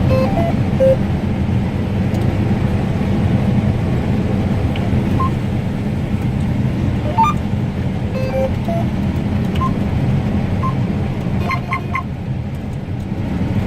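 John Deere S680 combine running while harvesting wheat, a steady low drone heard inside the cab. A few short faint tones sound over it.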